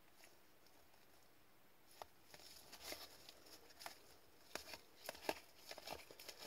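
Faint, irregular soft ticks and rustles of a stack of paper trading cards being flipped through in gloved hands. The sound starts about two seconds in.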